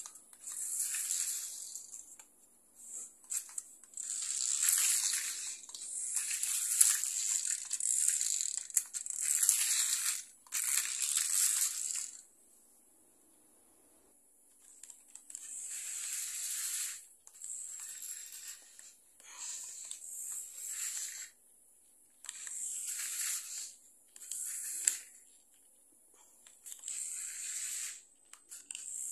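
Homemade RC drift car driven in short bursts on a tile floor: a high-pitched noise from its motor and tyres scrubbing on the tile. About a dozen bursts of one to two seconds each, with brief pauses and a longer pause about halfway through.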